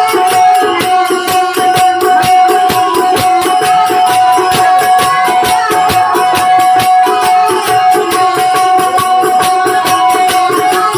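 Indian folk-style music: a fast, steady percussion beat of shaker- and drum-like strikes over one long-held drone note.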